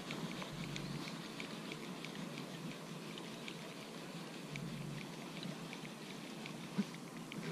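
Baitcasting reel cranked to retrieve a lure, giving faint, irregular light ticking.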